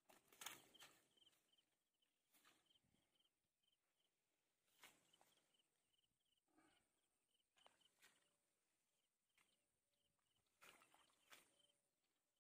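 Near silence: a few faint clicks and taps, with a faint high chirping repeating in the background.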